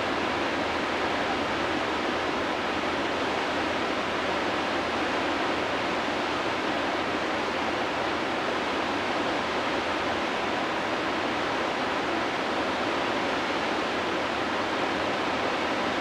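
Whitewater river rapids rushing steadily: the churning water of a standing river wave.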